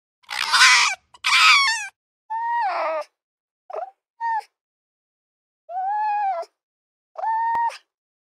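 Red fox calling: two harsh, rasping calls back to back, then a run of five shorter, clearer whining calls with pauses between them.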